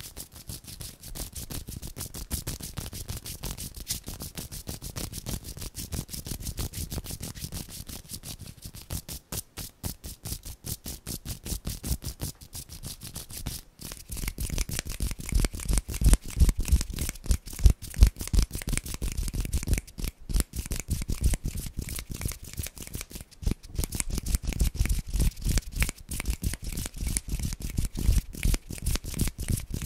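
Hand sounds close to the microphone: skin rubbing and fingers fluttering in a rapid, continuous run of dry rubbing and tapping. About halfway through it gets louder and deeper.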